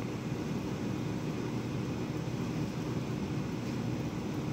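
Ninja AF161 air fryer running in air-fry mode: its fan gives a steady whir of white noise with a faint low hum under it.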